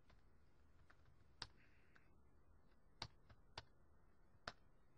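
Faint, scattered computer keyboard keystrokes: a few separate sharp clicks a second or so apart over quiet room tone.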